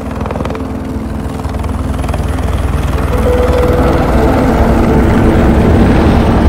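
Rotors of a DJI T30 agricultural spray drone running, a dense rotor noise that grows louder over the first few seconds and then holds steady.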